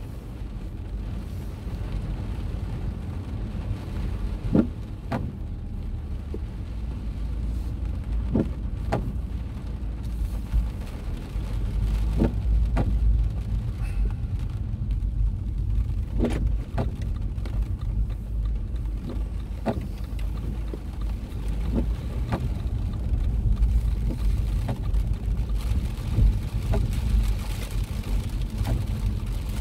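Car running slowly on a wet road in heavy rain, heard from inside the cabin: a steady low rumble of engine and tyres, with sharp ticks every few seconds.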